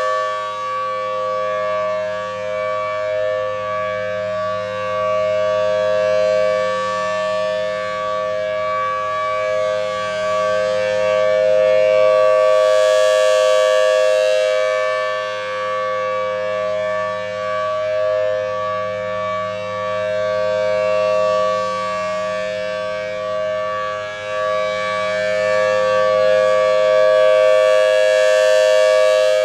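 Federal Signal Thunderbolt 1000T B-Series outdoor warning siren sounding its steady full-alert tone. The pitch holds level while the loudness swells and fades as the rotating head sweeps around, loudest about halfway through and again near the end.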